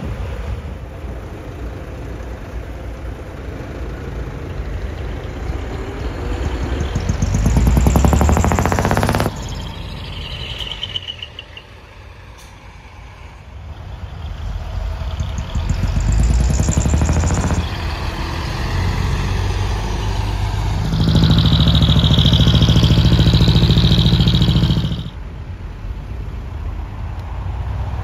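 Large diesel trucks and a coach bus driving slowly past one after another, engines running. The sound changes abruptly several times. The loudest stretch, about three quarters of the way through, holds a steady high tone over the engine.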